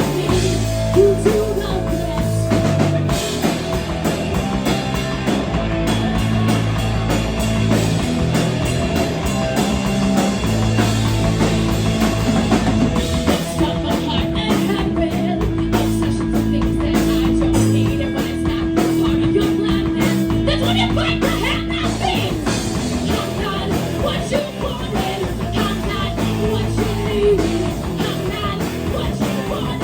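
Rock band playing an original song, with drum kit, guitar and a female lead vocalist singing. A long held note sounds through the middle.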